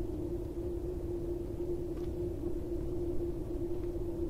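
Container ship's engine heard across the water as a steady low rumble with a constant hum.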